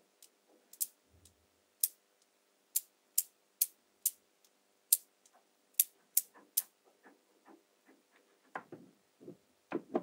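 Small magnetic balls clicking sharply as flat hexagonal layers snap together, about a dozen crisp separate clicks, then a few duller knocks near the end.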